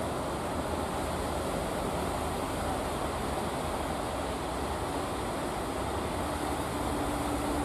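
Steady rush of breaking surf and wind, with a faint engine hum from the fishing boats coming in near the end.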